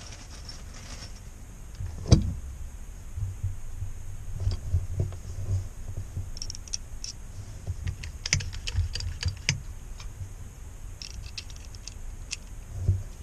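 Metal clicks and clinks of a hand crimping tool for battery-cable lugs being handled as a 25 mm die is fitted into its head, coming in short clusters, with a knock about two seconds in and another near the end.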